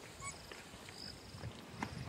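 Night bush ambience: a night insect's short, high pulsed trill about a second in, over a faint low rumble, with a few soft clicks and knocks near the end.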